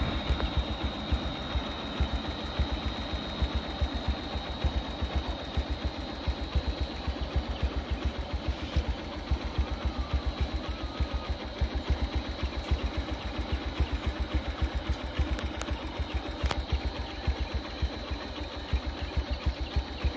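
Vehicle engine idling nearby, a rapid, even low chugging. A steady high-pitched whine sits over it.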